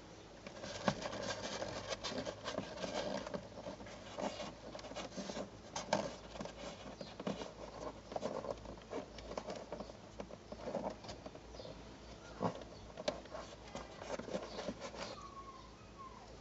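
Irregular rustling, scratching and small clicks of fingers pushing a dashcam power cable into the edge of a car's headliner.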